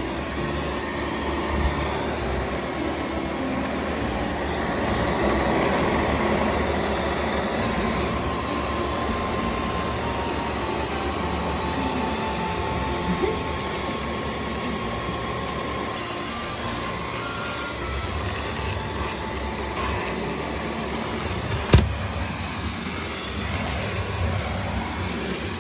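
Cordless stick vacuum cleaner running steadily, its soft roller head spinning on a tiled floor, with one sharp click near the end.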